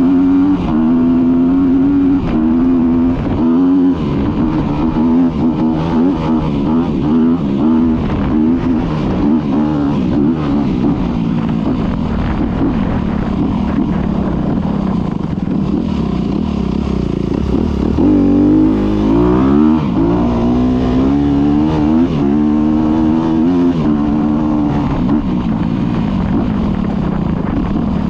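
Motorcycle engine running and revving while riding. Its pitch repeatedly climbs and drops, with a sharp rev about two-thirds of the way through.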